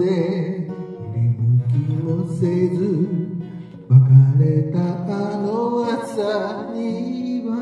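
Slow ballad sung to a strummed acoustic guitar: chords struck about a second in and again about four seconds in, under long held sung notes with vibrato.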